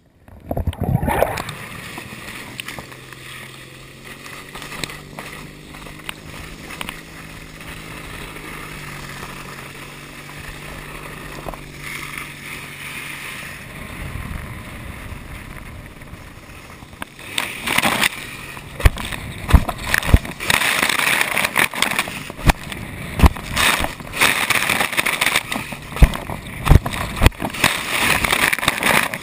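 Tow boat's engine hums low and steady with a slowly shifting pitch. About halfway through, rushing water takes over as the water ski is pulled up to speed, growing loud and choppy with hard spray slaps against the camera on the ski.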